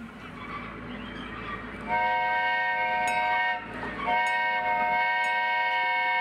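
Miniature zoo train, a red replica steam locomotive, sounding its whistle: a steady chord of several notes held in two long blasts with a brief break between. The train's approach is heard rising before the first blast.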